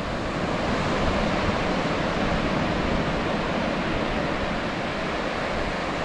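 Ocean surf breaking and washing on the shore, a steady rushing, with wind on the microphone.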